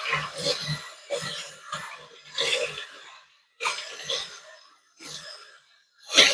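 A person coughing in a series of about eight separate coughs with short, uneven pauses between them.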